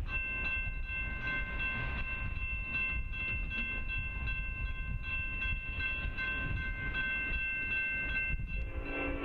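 Railroad grade-crossing warning bell ringing steadily as the signals activate for an approaching train. Near the end a train horn sounds for about a second.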